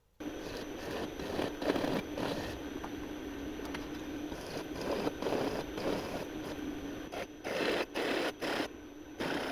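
A metalworking machine tool runs with a steady hum while cutting steel, the scraping cutting noise swelling and easing several times. It starts abruptly just after the beginning.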